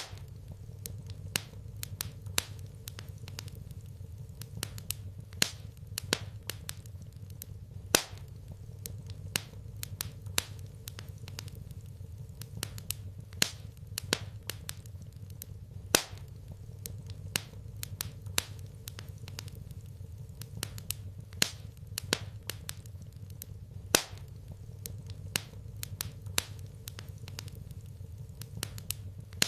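Wood fire crackling in a fireplace: irregular sharp pops and snaps over a steady low hum.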